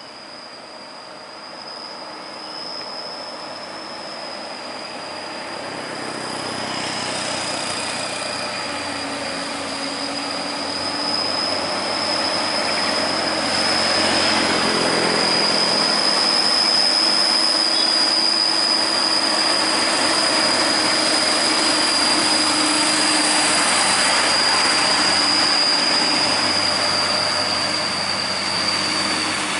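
Heavy Hino dump truck's diesel engine running and its tyres rolling as it passes, growing louder toward the middle and easing off near the end, under a steady high-pitched whine.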